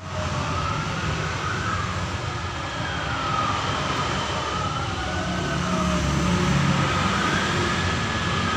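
A siren like an ambulance's wailing, its pitch rising and falling slowly, about one cycle every three seconds, over a steady low rumble.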